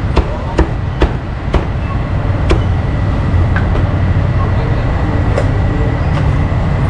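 Meat cleaver chopping roast duck on a thick wooden chopping block: five sharp chops in the first two and a half seconds, then the chopping stops. A steady low rumble runs underneath.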